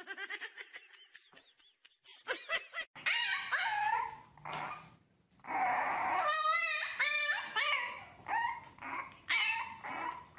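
French bulldog puppy whining and yipping: a string of short, high, wavering cries starting about three seconds in.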